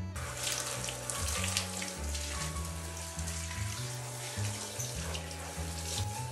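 Handheld shower head running, spraying water onto a soapy golden retriever's legs and the tiled shower floor to rinse off shampoo; the spray comes on just as it begins.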